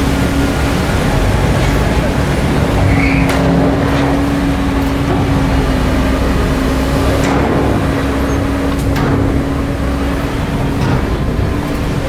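Heavy diesel earthmoving machinery running steadily, with a constant whine and a few short knocks.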